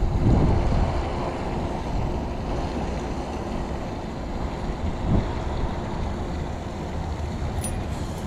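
Steady low rumbling noise of wind buffeting the microphone. A brief bump about five seconds in and a short click near the end.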